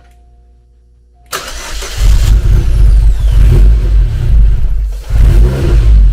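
Chevrolet Cobalt SS's supercharged 2.0-litre four-cylinder (LSJ) cranking and catching about a second in, then running loud, its speed rising and falling. The owner blames a battery too low to keep it firing and a jumper pack that keeps kicking on and off.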